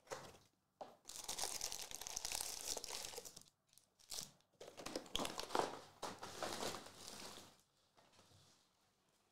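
Cardboard box of Illusions football card packs being torn open, and its foil packs crinkling as they are pulled out and stacked. The rustling comes in two long stretches and dies away near the end.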